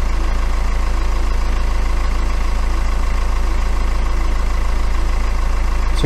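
BMW N47 four-cylinder diesel engine idling steadily, with a fresh timing chain fitted.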